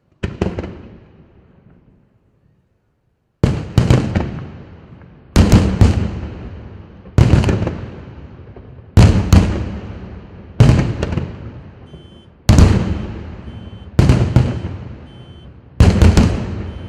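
Aerial firework shells bursting: one blast at the start, a short gap, then a steady series of loud booms about every two seconds. Each boom has a few sharp cracks and dies away in a long rumble.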